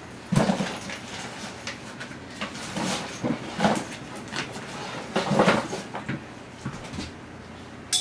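A padded nylon camera backpack being handled, turned over and set down, giving bursts of fabric rustle and soft bumps about four times, the first the loudest. A sharp click comes right at the end.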